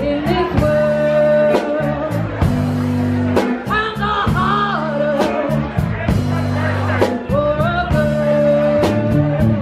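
Live band playing: a woman singing long held notes and sliding phrases over electric guitar, bass guitar and drums, with a steady drum and cymbal beat.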